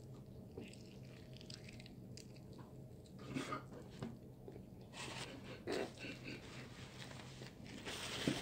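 Close-up crunching bites and chewing of Kentucky Fried Chicken's crispy fried coating, faint at first and louder about three seconds and five to six seconds in. A louder burst of noise comes near the end as a paper napkin goes to the mouth.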